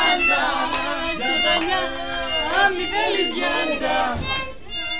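Violin playing a melody with sliding, wavering notes.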